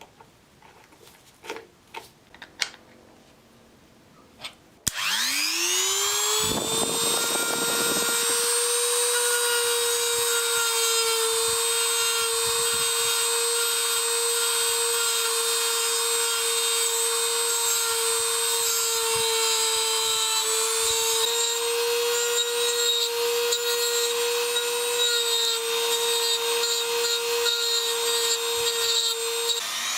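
A few light taps, then a small high-speed power tool switches on about five seconds in. It spins up with a rising whine and runs at a steady high pitch until it winds down near the end.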